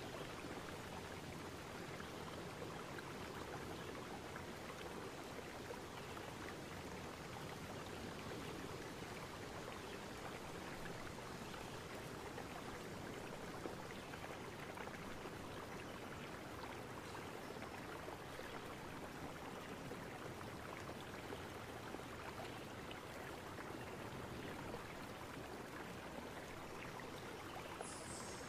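Steady faint hiss of even noise with no distinct events.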